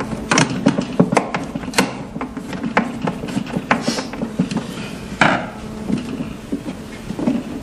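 Screwdriver turning screws into the plastic inner lid of a 3D sublimation vacuum heat press: a run of irregular small clicks and knocks, with a brief louder rasp about five seconds in.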